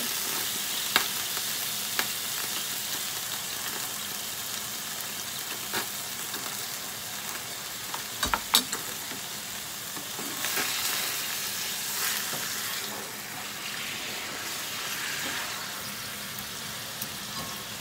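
Fried tofu sizzling in a nonstick frying pan as a splash of soy sauce and mirin cooks down over it: a steady hiss, broken by a few sharp clicks.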